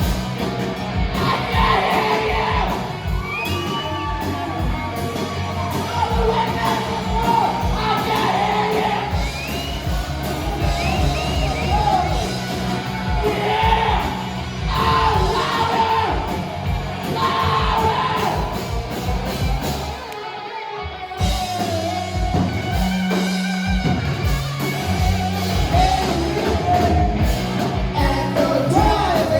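Live rock band playing with a lead singer, with some yelling from voices around; the band stops briefly for about a second, about two-thirds of the way through, then comes back in.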